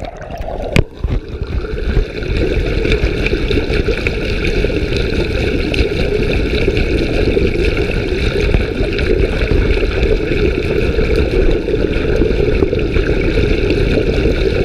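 Underwater pool noise picked up by a submerged action camera: a steady, muffled rushing and bubbling of water, with a single knock about a second in.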